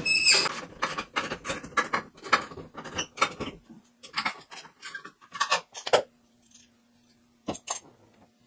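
Irregular metallic clinks and knocks of a steel wrench working on a frozen suspension bolt and striking the truck's frame, thick for the first few seconds and then sparse.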